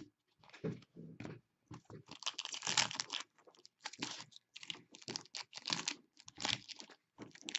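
Upper Deck hockey trading cards being handled and flicked through: irregular small clicks, slides and rustles of card stock, with a longer rustle about two seconds in.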